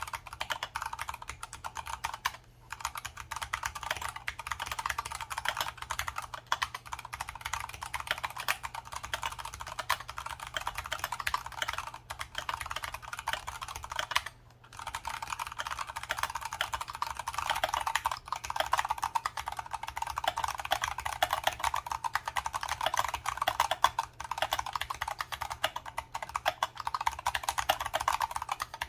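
Continuous fast typing on an Archon FX2 mechanical keyboard with tactile Kailh Brown switches: a dense run of keystroke clacks, with short pauses about two and a half seconds and about fourteen seconds in.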